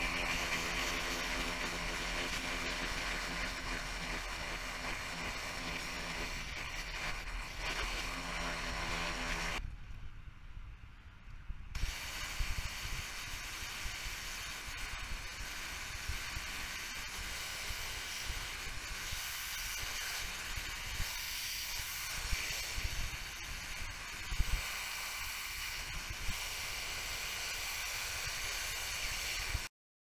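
Pressure washer cleaning concrete: a steady machine hum under the rushing hiss of high-pressure water from a spinning surface cleaner, then a wand spraying with scattered clicks and knocks after a brief break about a third of the way in. The sound cuts off abruptly just before the end.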